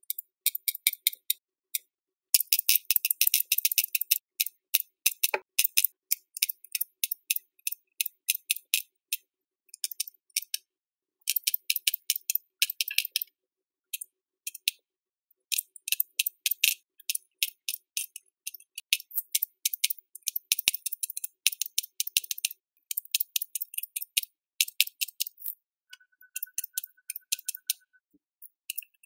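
Aquabeads dispenser pen clicking as it drops beads one at a time onto a plastic bead tray: rapid runs of small, sharp plastic clicks broken by short pauses.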